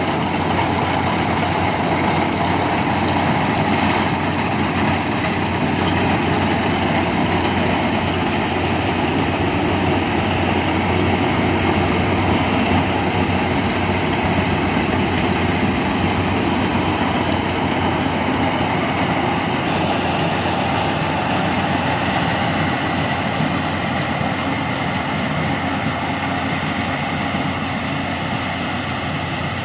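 Yanmar rice combine harvester running steadily under load: its engine together with the cutting and threshing works as it harvests standing rice. The level eases off slightly over the last several seconds.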